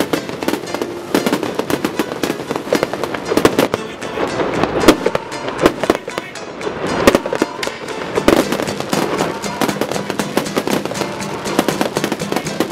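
Aerial fireworks going off in rapid succession: a dense, continuous barrage of bangs and crackling with no pause between bursts.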